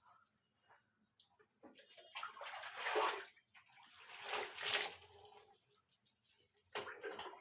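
Water splashing and pouring over wet hair as it is washed, in two strong swells a couple of seconds apart and a shorter splash near the end.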